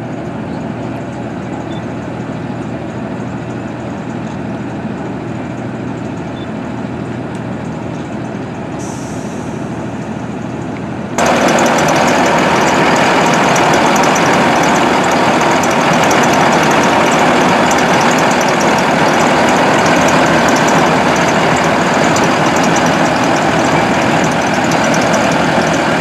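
Diesel engine of a rear-engine 2021 Blue Bird All American RE school bus idling steadily. About eleven seconds in it becomes suddenly louder and stays steady, now heard close up at the open rear engine compartment.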